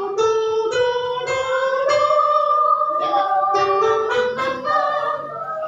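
Children's choir singing a vocal exercise on held notes that step up in pitch one after another, then start again lower about three seconds in and climb once more, with an instrument striking each new note.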